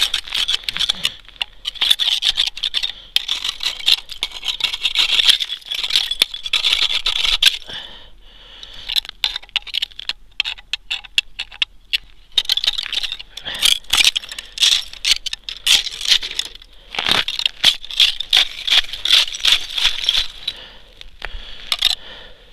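A knife scraping and cutting along a thin branch, rapid scratchy strokes with the dry twigs rustling, in bursts of a few seconds with short pauses between.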